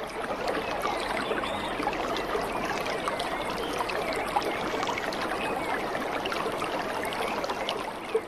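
Running, bubbling water, a steady stream of small splashes and gurgles, fading out near the end.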